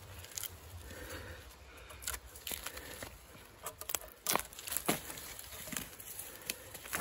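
Birch bark being cut with a knife and torn away from a birch log: crackling and tearing with a few sharp snaps, the loudest a little past the middle.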